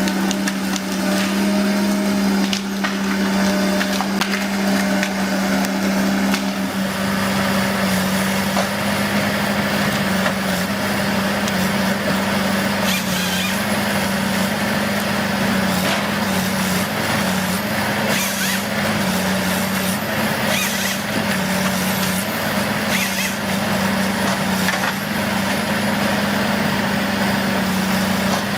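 Woodworking machinery running: a steady motor hum under dense, noisy working sound, with scattered sharp clicks and knocks. The low rumble thickens about a quarter of the way in.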